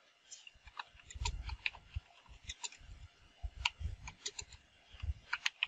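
Computer keyboard keystrokes clicking in an irregular run as a terminal command is typed, a few keys struck harder near the end.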